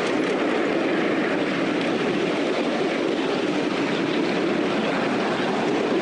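Ride-on miniature railway locomotive running along the track, heard from on board: a steady, even running noise of wheels and drive, with no breaks or changes.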